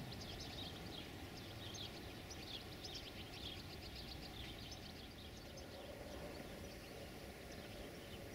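Small birds chirping in quick, dense runs of short high calls over a low, steady background rumble.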